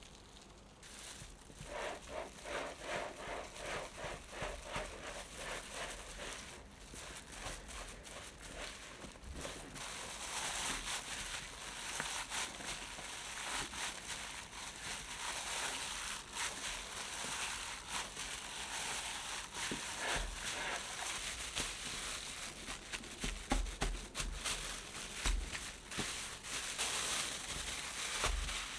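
Kitchen food-preparation handling sounds. A run of rhythmic mixing or rubbing strokes, about two a second, gives way to denser crackling and rustling with scattered light knocks.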